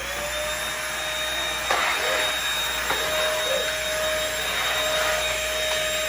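Vacuum cleaner running steadily at full speed, a constant high motor whine over a rush of airflow, with a knock about two seconds in.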